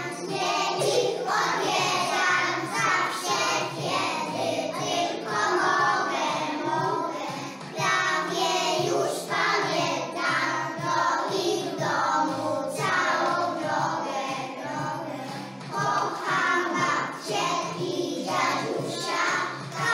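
A group of young children singing a Polish song together.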